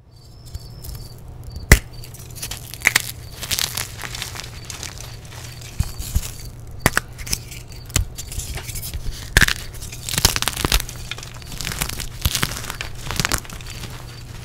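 Dyed gym chalk blocks snapping and crumbling as they are squeezed and broken apart by hand: a run of sharp, irregular cracks over a soft crunching of powder, the sharpest crack near the start.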